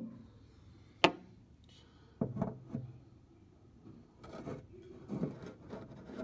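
Handling noises of a camera moved about inside a car's sheet-metal cowl: a sharp click about a second in, a few knocks a little later, then softer rubbing and knocking.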